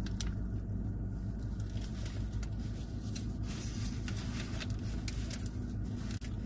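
Paper patty wrapper crinkling and rustling in the hands, with scattered short crackles, over a steady low hum inside a car.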